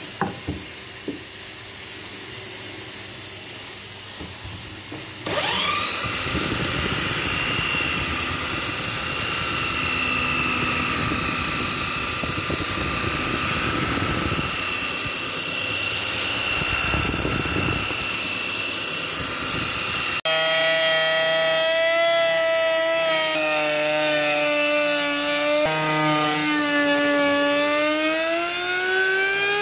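A power tool working wood starts suddenly about five seconds in, its whine rising quickly and then holding steady over a noisy cutting sound. About two-thirds of the way through, the sound changes abruptly to a motor whine that steps in pitch a couple of times and rises near the end.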